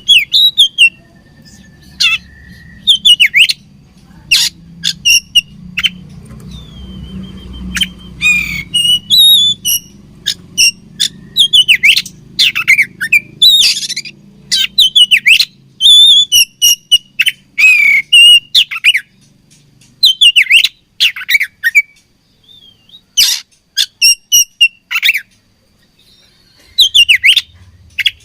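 Oriental magpie-robin singing: quick runs of sharp chirps and whistled notes, broken by short pauses.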